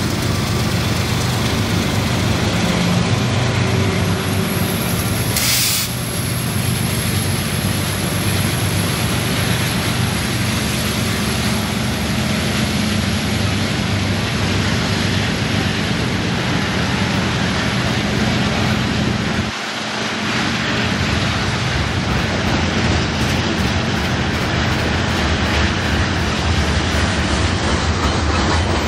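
Union Pacific freight train passing close by: the diesel locomotives' engines drone low at first, then a long line of covered hopper cars rolls past with a steady rumble and clatter of steel wheels on rail.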